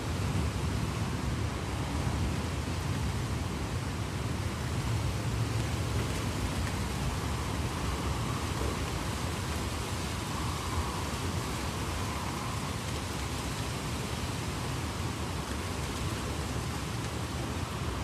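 Heavy rain falling steadily: an even hiss with a low rumble underneath.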